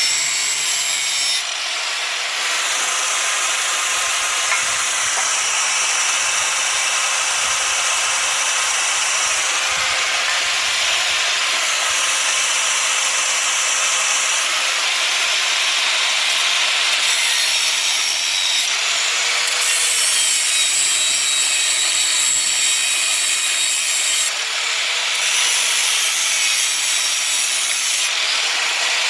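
Electric grinder grinding steel: a steady, loud abrasive rasp over the motor's whine, the pitch dipping now and then as the wheel is pressed into the work.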